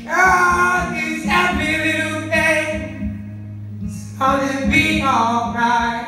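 Young man singing live with an acoustic guitar accompanying him: several drawn-out sung phrases, with a short break in the voice a little past the middle.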